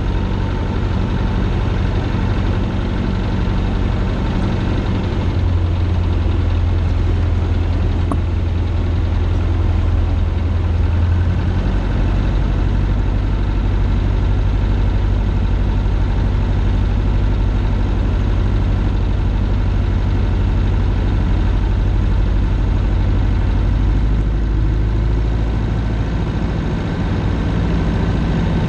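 Single-engine Cessna's piston engine and propeller droning steadily in flight, heard inside the cockpit. The low drone shifts in pitch about five seconds in and again about eleven seconds in.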